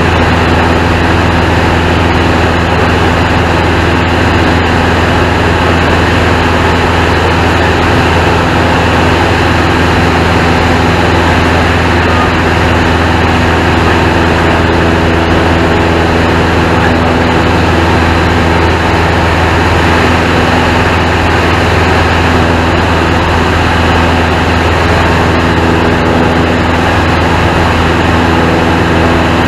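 Single-engine propeller airplane's piston engine and propeller running steadily in flight, heard inside the cockpit: a loud, constant low hum with steady overtones and wind noise, unchanging in pitch throughout.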